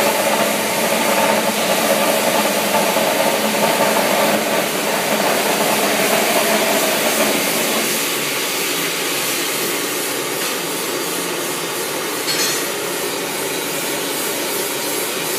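A hand file rasping over a freshly cast lead boss on wrought ironwork, the filing dying away about halfway through, over a steady rushing noise.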